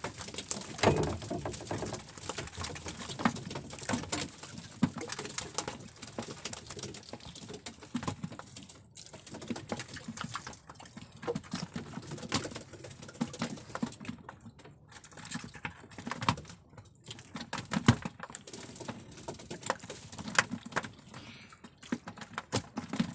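Irregular light clicks and knocks of a handline being worked by hand in a small wooden outrigger boat, with a few louder thumps.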